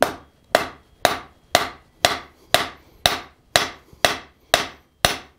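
Blacksmith's hand hammer striking a steel forging die block set on a red-hot bar on the anvil: a steady run of metal-on-metal blows, about two a second, each ringing briefly.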